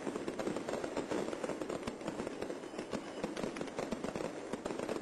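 Fireworks crackling, with many sharp cracks in quick succession over a steady background din.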